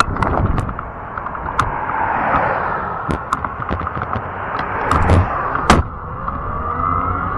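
Fat-tire electric bike riding over rough ground: a steady rushing noise from the tyres and drive, broken by many irregular sharp clicks and knocks from bumps and rattling parts.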